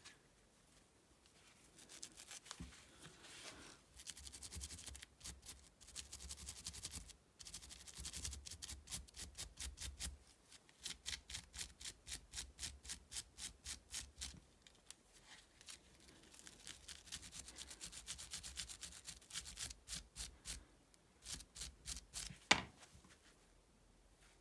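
Small wire brush scrubbing a ring cut from a 9 mm brass shell casing, in spells of quick back-and-forth strokes at about three a second. A single sharp knock near the end.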